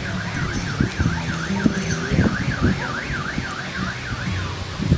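A siren-like alarm tone warbling up and down about three times a second, dying away near the end, over a low background murmur.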